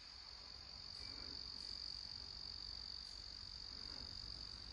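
An insect trilling faintly: one steady, high-pitched note held without a break.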